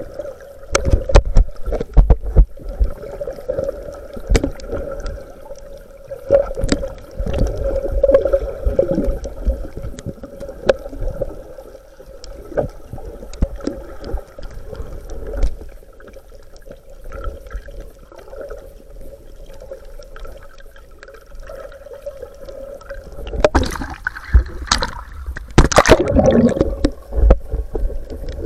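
Water sloshing and splashing close to the microphone, with irregular knocks and a steady hum underneath; the splashing grows louder near the end.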